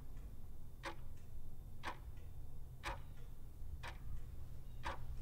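Quartz movement of a Pintoo puzzle ball clock ticking, one sharp tick about every second, over a low steady hum.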